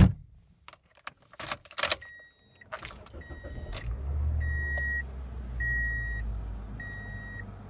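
Keys jangling and clicking in the ignition of a 2004 Toyota Corolla S. About four seconds in, its 1.8-litre four-cylinder engine starts and settles to a steady idle. Meanwhile the seatbelt warning chime beeps about once every second.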